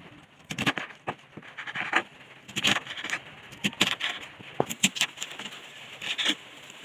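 Kitchen knife cutting a cabbage on a wooden chopping board: an irregular run of short cuts and taps of the blade on the board, sometimes several in quick succession.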